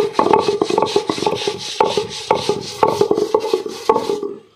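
Stone roller grinding rice and cumin into a thin paste on a granite grinding slab (sil-batta), stone rubbing on stone in regular back-and-forth strokes about twice a second. The strokes stop shortly before the end.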